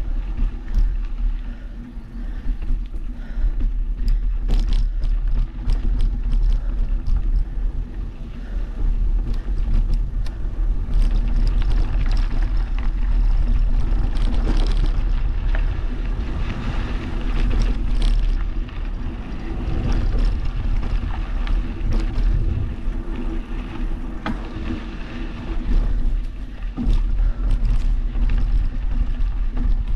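Mountain bike riding on a dirt singletrack: steady wind buffeting on the microphone and rolling tyre noise, with scattered clicks and rattles from the bike over bumps.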